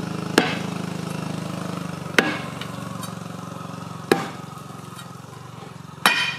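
A long iron bar is driven down onto a sandstone slab to split off stone, striking four times about every two seconds. Each strike is a sharp clank with a brief ring. Underneath runs a steady low engine hum that slowly fades.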